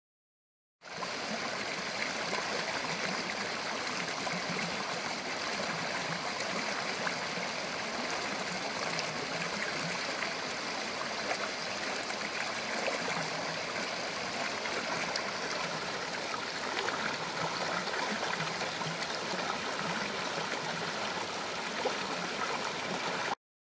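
Small mountain stream running over rocks and a low cascade, a steady splashing rush of water. It starts suddenly about a second in and cuts off suddenly near the end.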